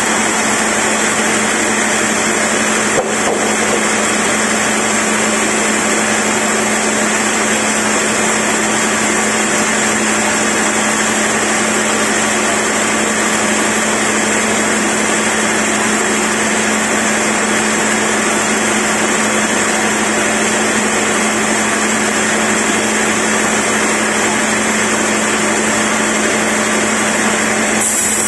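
Log band sawmill running and sawing lengthwise through a large hardwood log on its carriage: a steady, even machine noise with a constant hum, and one brief click about three seconds in.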